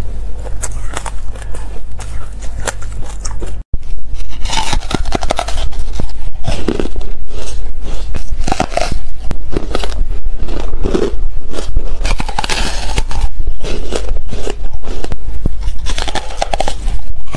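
Close-miked ice eating. A spoon scrapes through shaved ice, then after a short break about 4 s in come repeated crunchy bites into a block of frozen ice coated in powder. A steady low hum runs underneath.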